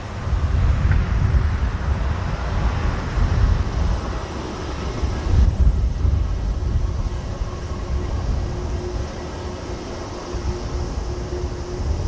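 Strong wind buffeting the microphone with a low, gusting rumble, over the distant jet engines of an Airbus A321 on final approach. A faint steady engine tone comes up in the second half as the aircraft nears.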